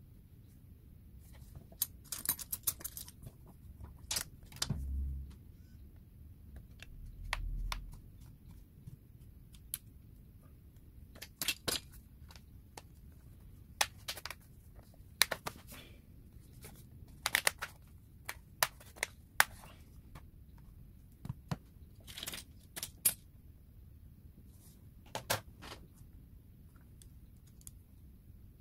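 Scattered sharp clicks and light taps of small tools and plastic tablet parts handled during disassembly, in irregular clusters, with two duller low thumps about five and seven seconds in.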